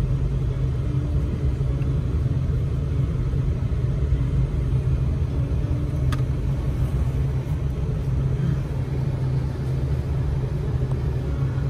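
Truck engine and road noise heard from inside the cab: a steady low rumble while driving slowly. There is one faint tick about six seconds in.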